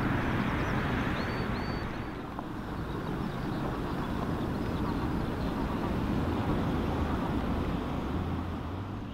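Small fishing boat under way: its outboard motor running steadily, with wind and water rushing past.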